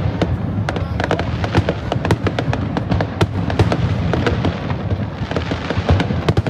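Fireworks display: a rapid, dense run of sharp cracks and pops over a continuous low rumble of booms.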